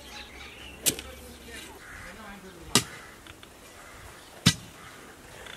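A long metal digging bar driven down into hard red earth three times, one sharp strike about every two seconds, breaking up the soil to dig a pit.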